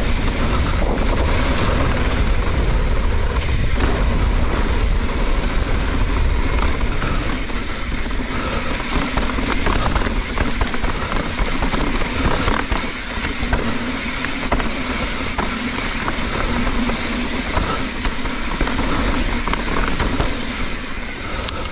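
Mountain bike ridden fast down a dirt jump trail: steady wind rush with a deep rumble on the GoPro's microphone, tyres on dirt, and frequent knocks and rattles from the bike over the bumps.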